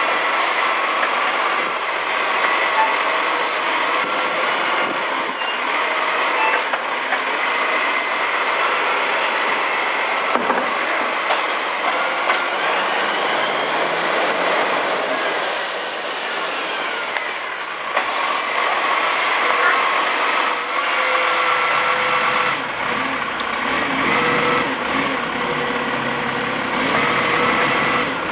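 Iveco side-loader garbage truck working a street: its diesel engine runs and pulls the truck away under load, and its hydraulic lift arm works as it tips bins, with steady whining tones over the engine and the hiss of air brakes.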